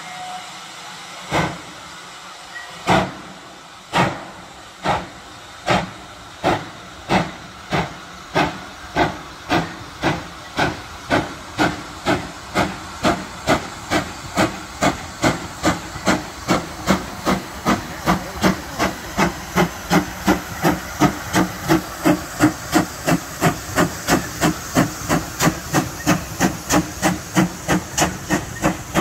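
Great Western-type steam locomotive starting a train from a stand, its cylinder drain cocks open. Its exhaust chuffs begin about a second and a half apart and quicken steadily to two or three a second as it gains speed, over a steady hiss of steam.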